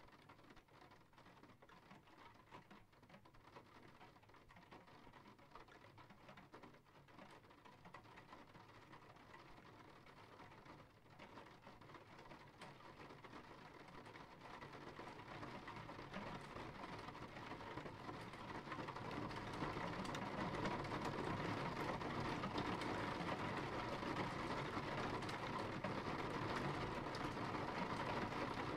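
Steady rain falling, growing heavier through the middle and holding at its loudest for the last several seconds.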